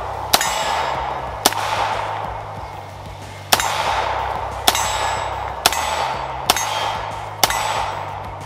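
Walther P38 9mm pistol fired seven times, mostly about a second apart, with a longer pause after the second shot; each shot rings out and echoes away. Background music with a steady bass line plays underneath.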